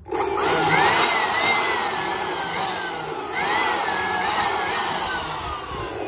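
Handheld electric blower switched on and blowing dust out of a gas heater's plastic mesh filter. Its motor whine rises, wavers up and down twice, then falls steadily as it spins down near the end.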